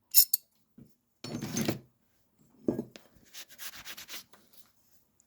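Rusty metal hand tool being handled and rubbed: a couple of sharp clinks, then scraping rubs and a quick run of short scratchy strokes about halfway through, as the surface is rubbed to find a maker's marking.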